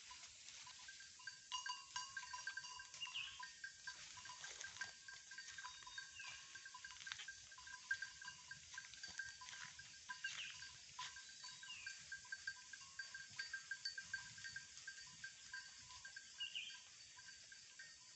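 Goats out grazing in forest, faint and in the background. Two steady, rapidly pulsing high tones run underneath, and short chirps come a handful of times.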